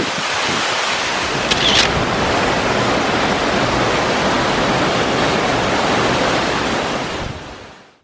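Waterfall pouring down over rocks: a steady, loud rushing of water, with a brief high-pitched sound about a second and a half in. The rushing fades out near the end.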